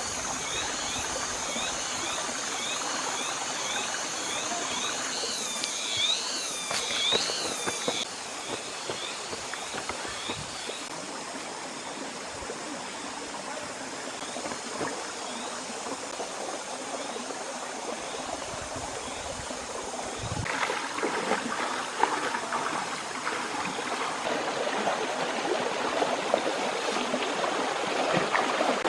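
Steady rush of flowing water, with repeated short high chirps and a thin high steady whine over the first several seconds; the water grows louder about twenty seconds in.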